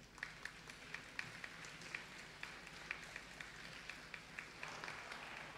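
Audience applauding: a fairly faint, even patter of clapping with single sharper claps standing out, easing off slightly near the end.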